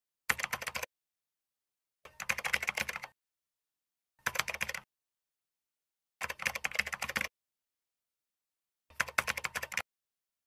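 Five short bursts of rapid clicking, each under about a second, separated by dead silence.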